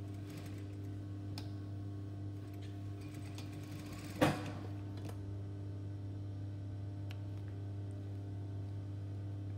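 Industrial sewing machine with its motor humming steadily, stitching briefly near the start. A single sharp knock comes about four seconds in.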